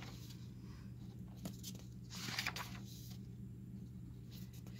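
Sheets of drawing paper being handled and turned: a few short, faint rustles, the largest about two seconds in, over a steady low hum.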